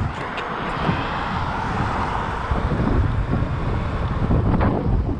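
Wind buffeting the microphone of a camera on a moving fat bike, over a low rumble of fat tyres rolling on asphalt; the rush grows a little louder about halfway through.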